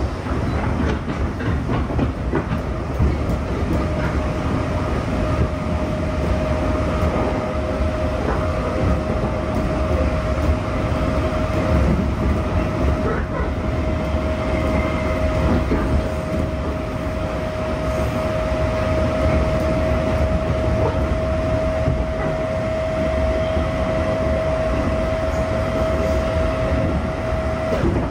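Interior running noise of a JR East 211 series electric multiple unit: a steady low rumble from the wheels and bogies, with faint rail-joint clicks. Over it runs a steady high-pitched hum that stops shortly before the end.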